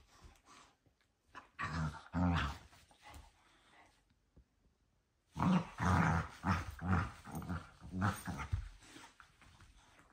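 Dogs growling in play while they wrestle and mouth each other: a short run of growls about two seconds in, then a longer string of growls from about halfway to near the end.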